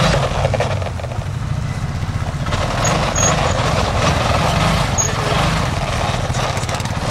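Engine of the Stompertech ATRV, a homemade tracked ice-fishing vehicle, running with a steady low drone as it drives slowly over the snow.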